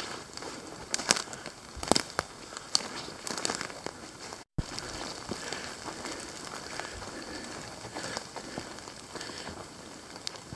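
Footsteps of a runner through leaf litter: irregular crackling and crunching over a steady hiss. All sound cuts out for a split second about halfway through.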